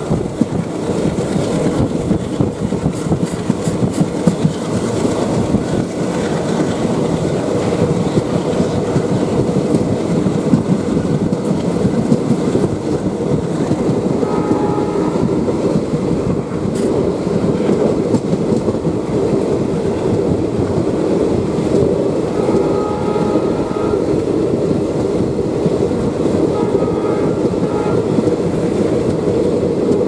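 A passenger train running at speed, heard from inside a coach: a steady rumble and rattle of wheels on the track. Brief faint tones come and go in the second half.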